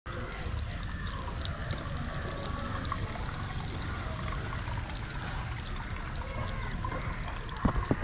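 Water spraying from a leaking PVC pipe connector at the outlet of a plastic water tank: a steady hiss of jets with droplets spattering, a low rumble underneath. A couple of knocks near the end.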